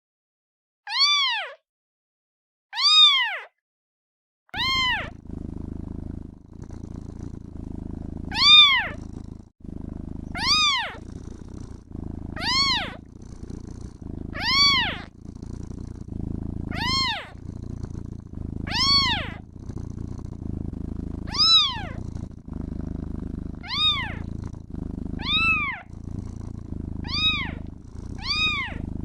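Kitten meowing over and over, each meow rising and then falling in pitch, roughly one every two seconds. Continuous low purring sets in about four seconds in and runs under the meows.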